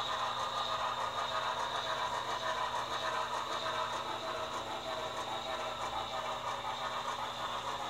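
HO-scale model NYC J-1 Hudson 4-6-4 steam locomotive and its freight cars running on the layout track: a steady mechanical whir with a faint light clatter of wheels on rail.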